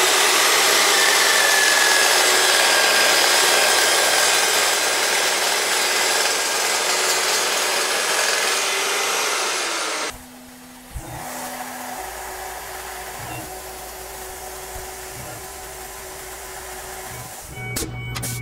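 DeWalt DW872 14-inch multi-cutter metal chop saw cutting through a 3/8-inch by 3-inch aluminium bar: a loud, harsh, steady cutting noise with a faint whistle over it. It stops about ten seconds in, leaving a much quieter stretch.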